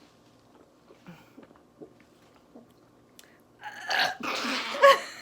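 Faint mouth clicks, then about four seconds in a loud, raspy, forced burp lasting about a second and a half.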